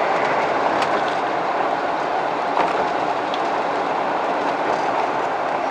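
Steady road noise inside the cabin of a four-wheel-drive vehicle driving on a plowed highway: an even rush of tyres and wind, with a few faint clicks.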